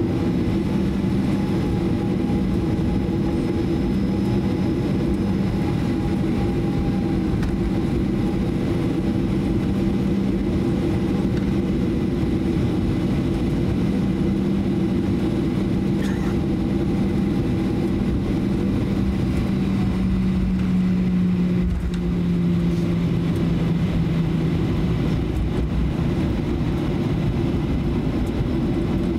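Cabin noise of a Boeing 737-800 taxiing, heard from inside the cabin: its CFM56-7B jet engines at idle make a steady rushing hum with a low drone. About two-thirds of the way through, the drone drops slightly in pitch and then fades.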